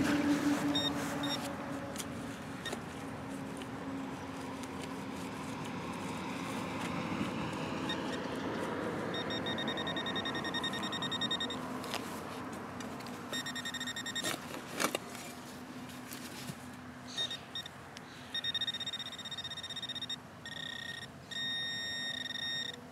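Handheld metal-detecting pinpointer sounding a high-pitched, rapidly pulsing electronic tone in several bursts in the second half, as its probe passes over a metal target in the dug hole. Soft scraping and a few knocks of a hand digger working the soil accompany it.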